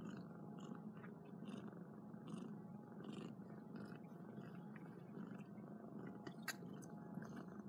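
Kittens purring faintly and steadily while they cuddle and groom each other, with a few soft ticks.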